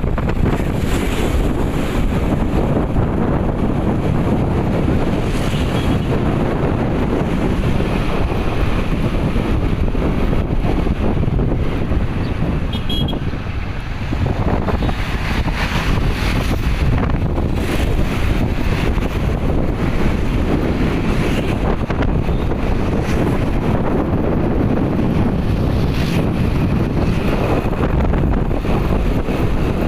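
Heavy wind buffeting the microphone over the steady noise of a moving vehicle.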